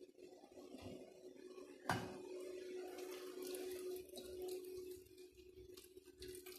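Water pouring from a stainless steel tumbler into a steel bowl of flower petals, a steady pour that starts just after a sharp metal clink about two seconds in. A faint steady hum runs underneath.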